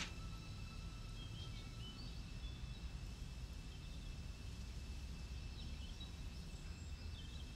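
Outdoor ambience: a low steady rumble with faint, scattered bird chirps.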